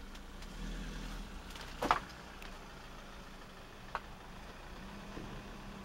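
A low, steady engine hum, with two sharp clicks about two seconds apart; the first is louder.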